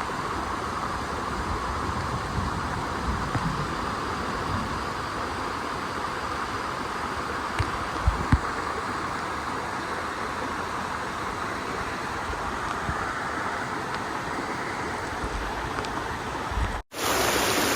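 Steady rush of flowing stream water, with wind buffeting the microphone and two short thumps about eight seconds in. Near the end it cuts off abruptly to a louder, brighter rush of water.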